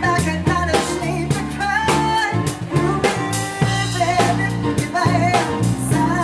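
A woman sings lead with a live band of keyboard, guitar, bass and drums, the drum kit keeping a steady beat under her voice.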